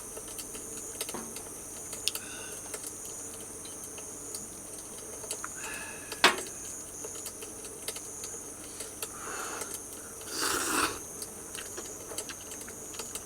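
Insects, crickets among them, chirring steadily in a high thin tone, with scattered small clicks and taps of things being handled close by. There is one sharp click about six seconds in and two short rustles near the end.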